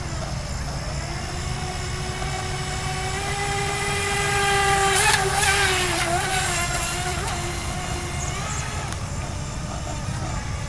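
Brushless electric motor of a radio-controlled vehicle skimming across shallow floodwater: a steady whine that swells as it passes close about five seconds in, with a brief rush of spray, then fades away.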